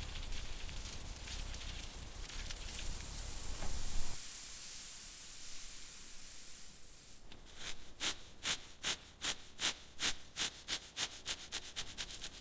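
A steady hiss for several seconds, then a quick, regular run of short rubbing or scrubbing strokes, about two to three a second, on a car panel or part under restoration.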